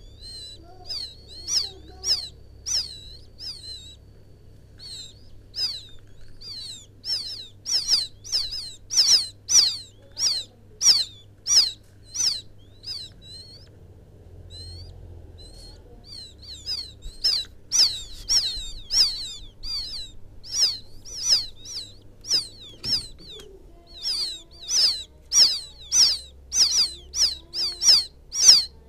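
Quail chicks peeping, calling for the mother bird: a rapid series of short high chirps, about two or three a second, with a pause of a few seconds in the middle.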